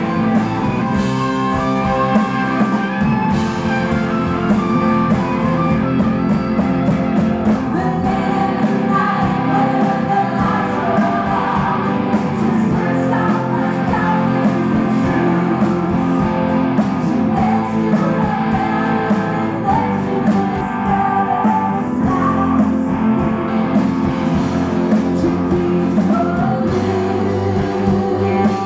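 Live rock band playing, with electric guitars, drums and keyboard and a singer's voice over the band.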